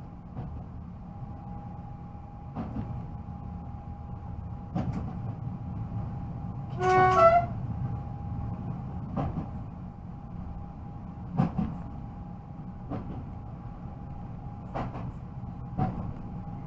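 Newag Impuls electric train running, heard from the driver's cab: a steady rumble with a constant whine, and a knock about every two seconds. About seven seconds in comes a short horn blast, the loudest sound.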